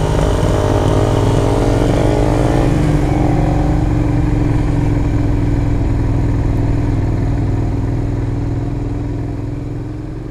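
Suzuki SV 650's V-twin engine heard from the rider's seat, pulling away with its pitch rising over the first few seconds, then running steadily. The sound fades out near the end.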